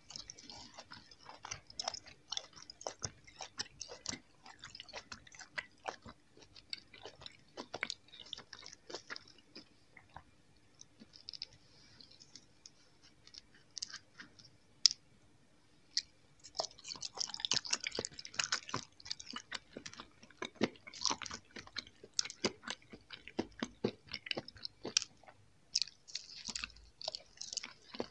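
Close-miked chewing of soft gummy jelly candies: wet, sticky mouth clicks and smacks in an irregular stream. The chewing thins out for a few seconds past the middle, then grows dense again as a sprinkle-coated jelly finger is bitten and chewed.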